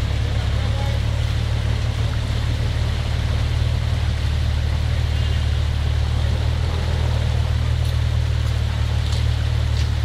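Off-road 4x4 engine running at a low, steady pace as the vehicle wades through a shallow river ford, a constant deep hum.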